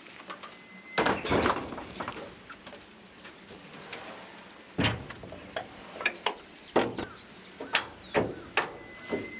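Clunks and knocks as a kerosene heater is set down on a kei truck's metal bed, then a run of sharp metallic clicks and knocks as the truck's tailgate is raised and latched. A steady high insect buzz carries on underneath.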